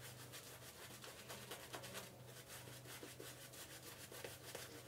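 Mixed-hair shaving brush scrubbing soap lather on a bearded face: faint, quick repeated bristly rubbing strokes as the lather is worked up.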